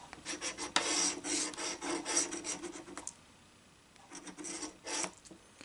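A scratch-off lottery ticket being scratched: quick rasping strokes scraping off the coating for about three seconds, a short pause, then a few more strokes.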